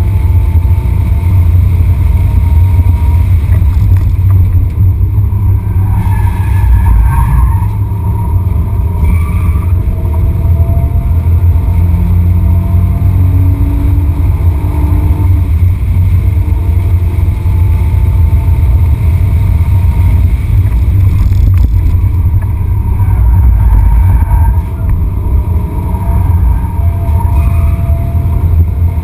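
Interior sound of a BMW E46 330i's 3.0-litre straight-six under hard driving, its revs rising and falling through the gears, under a constant heavy low rumble of road and wind noise in the cabin.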